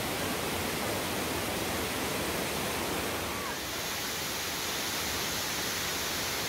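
Rushing water of Asik-Asik Falls, many thin falls spilling down a cliff face into river rapids below, as a steady noise of water. About three and a half seconds in it changes to a thinner, higher hiss.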